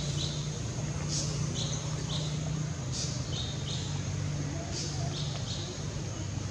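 A bird calling: short high chirps in a phrase that repeats about every two seconds, over a steady low hum.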